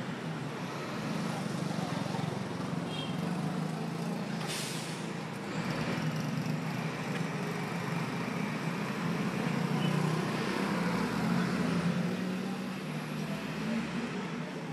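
Motor vehicle engine running steadily with road noise as it drives along a street, with a short hiss about four and a half seconds in.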